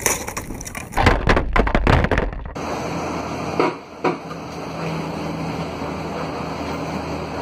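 Skis and ski poles clattering and knocking on asphalt as a rider on a hoverboard loses balance and falls, with a low rumble under the knocks. After a cut, steady engine and road noise inside a bus cab, with two short knocks.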